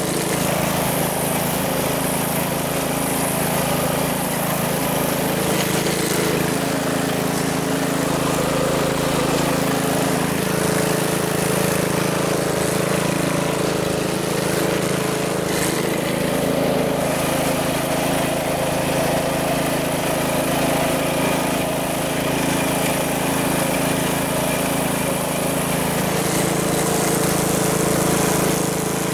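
1969 Chevrolet Malibu's engine running steadily at a low, even speed, its pitch shifting slightly now and then.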